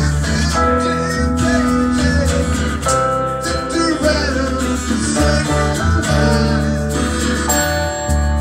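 Live music from an acoustic guitar and a digital stage piano playing together, with sustained chords and strong low notes that change every second or so.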